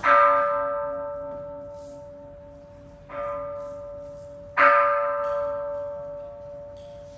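Buddhist bowl bell (kin) struck three times, a loud strike, a softer one about three seconds later and another loud one a second and a half after that, each ringing with a clear tone and fading slowly.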